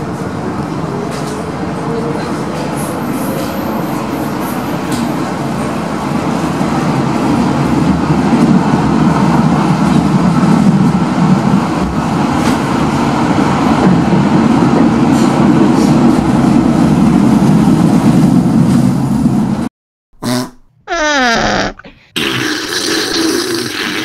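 Underground train running, heard from inside the car as it pulls out of a station into the tunnel, growing louder after about eight seconds. It cuts off suddenly near the end and three short fart sounds follow, sliding in pitch.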